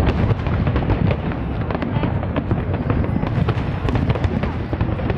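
Aerial fireworks shells bursting in a dense barrage: many overlapping bangs in quick succession over a continuous low rumble.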